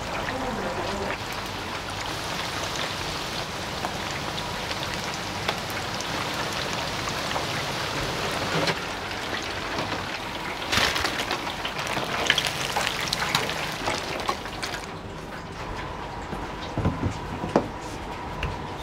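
Tempura sizzling in the hot oil of a commercial deep fryer, a steady dense hiss. About fifteen seconds in, the sizzle drops away and a few sharp knocks follow.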